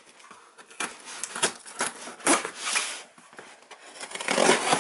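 Packing tape on a cardboard shipping box being slit with a small blade: irregular scrapes and sharp clicks of the blade on tape and cardboard, then a longer spell of cardboard rustling near the end as the box is pulled open.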